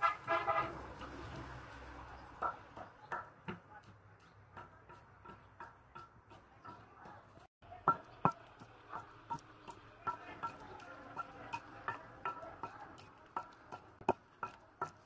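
Long wooden pestle pounding in a stone mortar: sharp knocks of wood on stone, about two a second and not quite even, as the contents are crushed. A short high-pitched sound right at the start.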